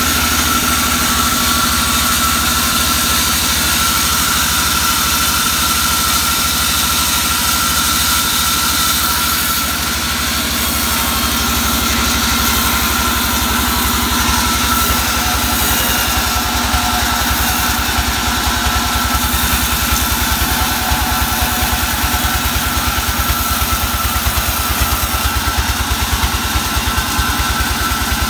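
Sawmill's engine running steadily with a fast, even low throb and a steady high whine, the saw running free without cutting wood.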